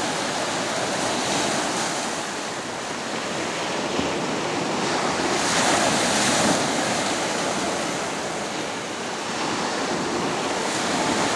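Ocean surf breaking on a sandy beach, a continuous wash of waves that swells louder about five to six seconds in as a big wave breaks.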